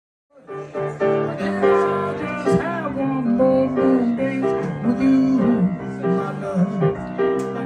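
Live grand piano music starts suddenly about a third of a second in, with a wavering melody line over the piano chords.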